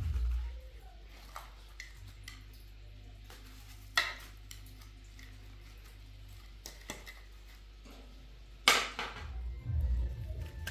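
Scattered clinks and clatters of dishes and utensils over a low steady hum. One sharp clatter comes about four seconds in and a longer, louder one near nine seconds.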